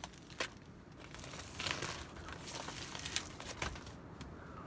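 Crinkly rustling of camping gear being handled inside a tipi, with a couple of light knocks at the start and several louder crinkles in the middle.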